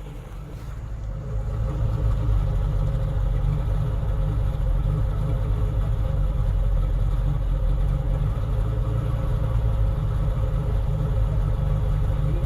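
Engine running, getting louder about a second and a half in and then holding steady; the title complains that it clatters and knocks, pointing to an engine fault.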